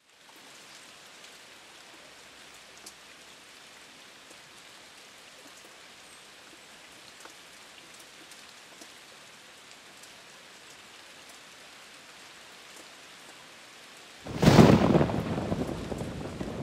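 Steady hiss of rain with scattered faint ticks; about fourteen seconds in, a loud thunderclap rumbles and dies away over a couple of seconds.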